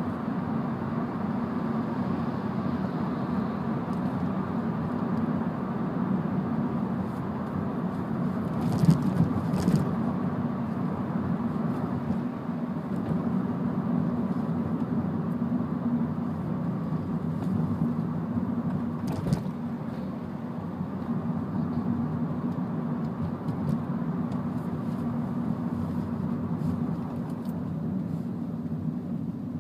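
Steady engine and road hum inside the cabin of a moving manual MINI Cooper, with a few brief knocks about nine seconds in and again a little before halfway.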